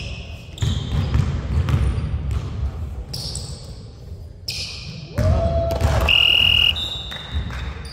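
Basketball game noise on a hardwood gym floor: a ball bouncing in a series of sharp thuds, with short high squeaks and a louder held squeal about six seconds in, all echoing in the big hall.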